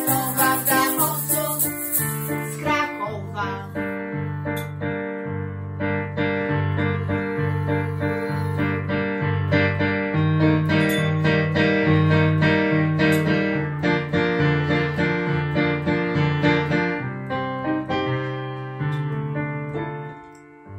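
Piano music played on an electronic keyboard: an instrumental outro of chords and melody. A shaker rattles along for the first couple of seconds, then the keyboard carries on alone and fades out near the end.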